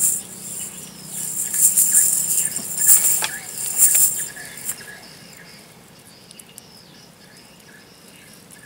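Water splashing and pattering, loudest and crackly in the first four seconds, then dying down to a faint steady hiss.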